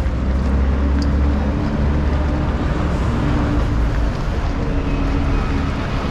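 Busy city street ambience: a steady low rumble of road traffic, with buses and cars passing.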